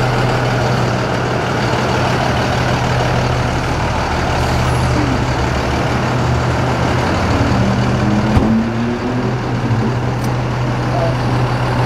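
A 26 ft box truck's engine idling steadily with a low hum. There is a single knock about eight seconds in.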